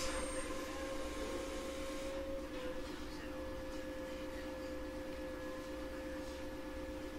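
Steady whine with a lower hum over a low rumble, heard inside a JR East 719 series electric train: the 'jet sound' the series is known for. The whine's pitch dips slightly about two and a half seconds in.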